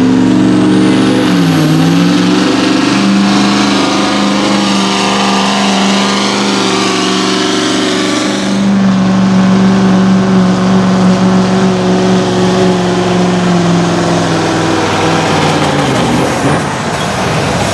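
Modified Iveco diesel truck pulling a weight-transfer sled at full throttle. The engine's pitch dips and recovers about a second and a half in, holds steady at high revs under load, then falls near the end as the pull winds down.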